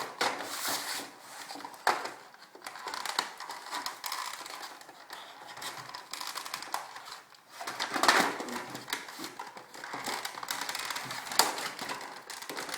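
Toy packaging being cut and pulled apart with a knife: irregular crinkling and crunching, with a few sharp snaps, the loudest about eight seconds in.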